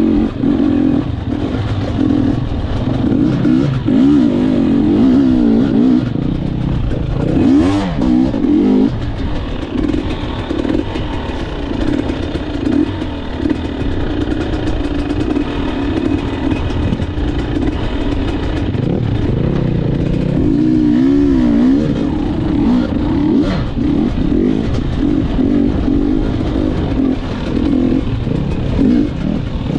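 Gas Gas EC 250 two-stroke enduro bike engine running hard off-road, its revs rising and falling constantly as the throttle is worked over rough ground.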